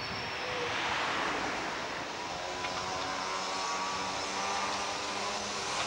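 Road traffic: a vehicle passes with a rush of noise about a second in, then a steady engine hum holds.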